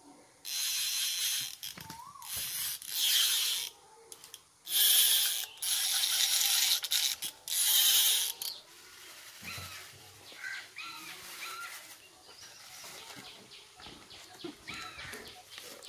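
Metal fishing reel's click ratchet buzzing as the spool is spun, in five loud bursts over the first eight seconds or so.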